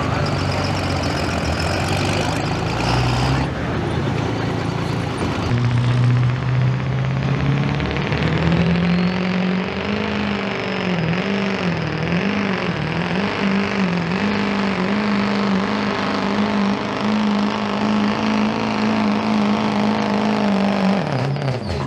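Diesel pickup truck engines at full throttle pulling a weighted sled. After a cut a few seconds in, one engine's pitch climbs, wavers for a few seconds, then holds high before dropping near the end.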